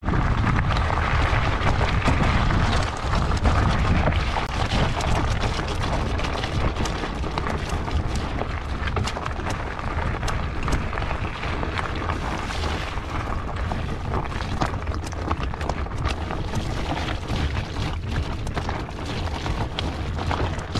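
Fatbike riding over a rocky gravel track: tyres crunching on stones and the bike rattling in many sharp clicks, under a heavy low rumble of wind and vibration on the handlebar-mounted GoPro microphone.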